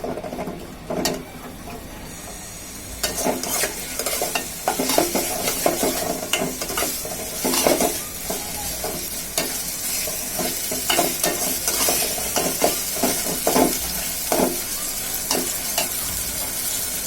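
Onions, ginger-garlic paste and spice paste frying in oil in a pan, sizzling steadily while a utensil stirs and scrapes the pan. The stirring knocks and scrapes get busier about three seconds in.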